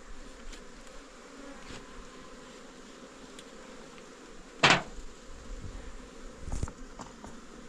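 Honeybees buzzing steadily around open hives. There is one sharp knock about halfway through and a duller thump a couple of seconds later.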